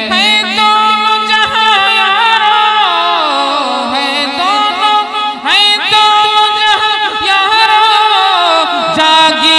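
A man singing a long, drawn-out, ornamented melodic phrase of an Urdu naat into a microphone, without clear words. His pitch slides and wavers throughout, with a sharp upward sweep about halfway through.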